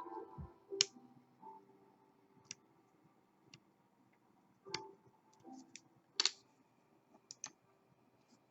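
Scattered small metallic clicks and taps of a lock pick working the pins inside a KABA Gemini lock cylinder, irregular and a second or so apart, with a louder double click about six seconds in.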